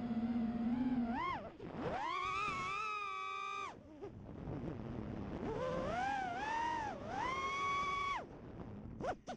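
The brushless motors and three-blade props of a 5-inch FPV racing quadcopter (EMAX RS2205-S 2300KV motors) whine, and the pitch rises and falls with the throttle. The whine holds steady at first, then climbs in two long throttle punches of about two seconds each, falling back low between them. Near the end the throttle is briefly cut to almost nothing.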